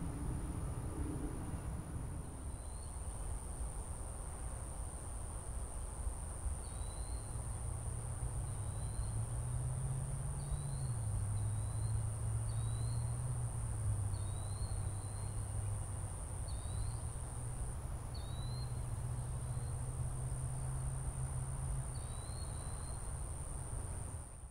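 Outdoor ambience: a steady high-pitched whine, with a small bird's short chip notes repeated every second or two. Underneath is a low drone that comes in about a quarter of the way through, rises briefly, and fades near the end.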